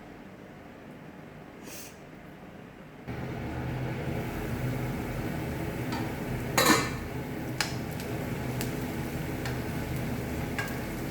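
Frying in a pan on the stove, with a metal spatula stirring, scraping once loudly and clinking a few times against the pan. The steady sizzle and a low hum come in suddenly about three seconds in.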